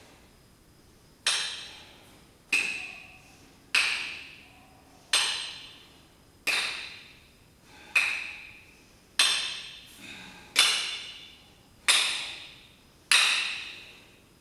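Pair of metal dumbbells clinking together at the top of each lying chest fly: a sharp, ringing metallic clink ten times, about every 1.3 seconds, each ring fading before the next.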